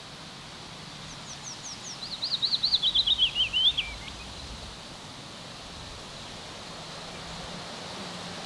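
A songbird sings one song: a few high separate notes, then a fast run of warbled notes falling in pitch, ending in a short flourish. A steady faint hiss of outdoor ambience runs underneath.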